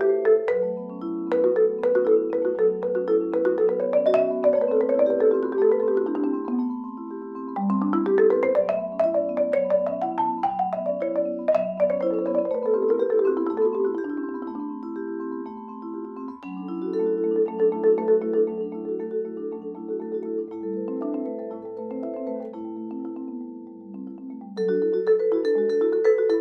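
Adams marimba and Musser M55 vibraphone played together with yarn mallets in fast, dense runs of notes that climb and fall, the vibraphone's tones ringing on over the marimba. The texture thins briefly a few times before the runs pick up again.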